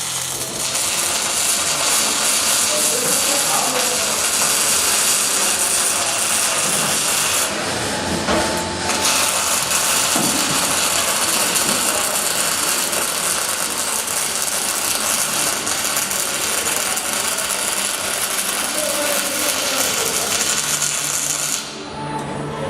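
Robotic MIG welding arc crackling steadily as it lays a weld, thinning out briefly about a third of the way in and stopping near the end.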